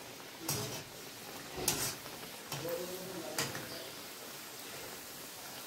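Oil sizzling around a sago-flour puri deep-frying in an iron kadhai, with a perforated metal slotted spoon scraping and knocking against the pan four times. The sharpest knock comes just under two seconds in.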